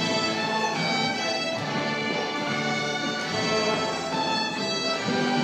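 A group of children playing fiddles together, a bowed tune of held notes that change every half second or so.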